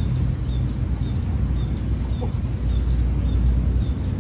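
Outdoor background: a steady low rumble, with a short high chirp repeating evenly about twice a second.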